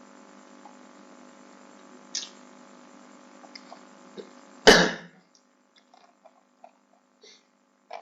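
A single loud, short throat-clearing sound a little over halfway through, over a steady background hum. After it the hum cuts off and a few light clicks follow.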